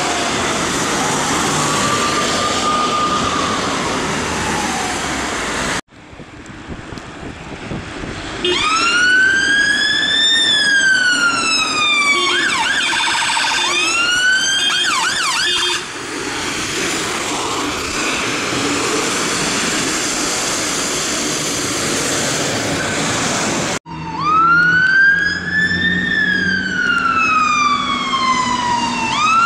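Emergency vehicle sirens in three cut-together passes. First, a fire officer's Land Rover Freelander's siren wails faintly under traffic noise. After an abrupt break, a Mercedes-Benz Sprinter fire rescue van's siren gives a slow wail, switches to a rapid yelp for a few seconds, and then fades into passing traffic noise. Near the end, a Dennis Sabre fire engine's siren wails loudly with slow rises and falls.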